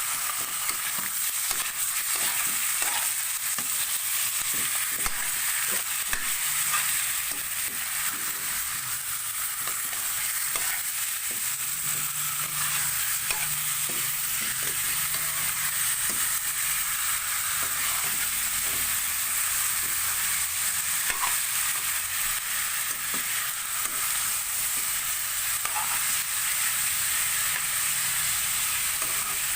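Chicken pieces frying in hot oil in a pan, a steady sizzle, with a utensil stirring and scraping against the pan in scattered short clicks.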